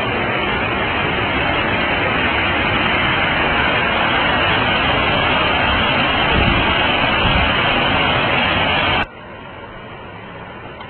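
Flooded river water rushing steadily over rocks. About nine seconds in it drops suddenly to a quieter, steady rush of water.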